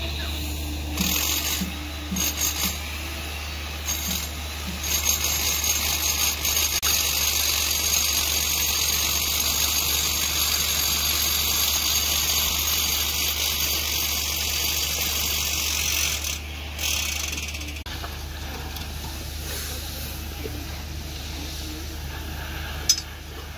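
Construction-site background noise: a steady low hum and a broad hiss, with a few light taps in the first seconds and a single sharp knock near the end.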